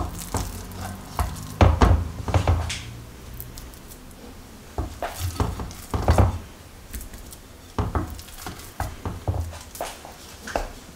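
Wooden spoon scraping and knocking against a glass bowl while scooping crumbly almond filling, with irregular clicks and a few dull thumps as the filling is dropped and spread on the puff pastry.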